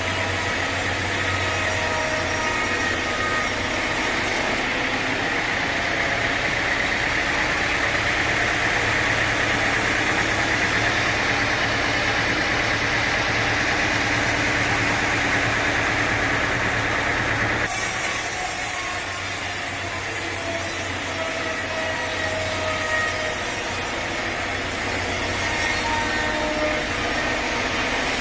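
Engine-driven sawmill running steadily, its saw cutting through a teak log with a continuous whine over the engine's hum. The sound changes abruptly about five seconds in and again about eighteen seconds in.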